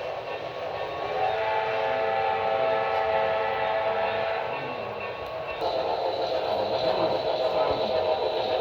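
Model steam locomotive's sound-system whistle blowing two long blasts, the second starting about five and a half seconds in and louder.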